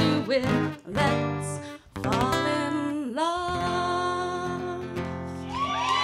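Live song: a woman singing to a strummed acoustic guitar, ending on a long held note. The audience starts cheering just at the end.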